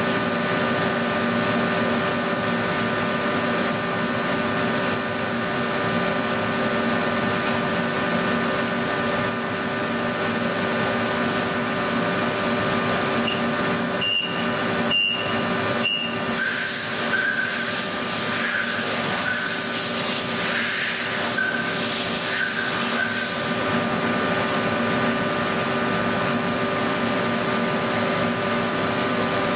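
DMG Mori Seiki mill-turn machining center running as a coated end mill cuts a slot in a metal workpiece: a steady machine hum with spindle whine tones. Three short sharp clicks come about halfway through, followed by a louder hiss that lasts several seconds.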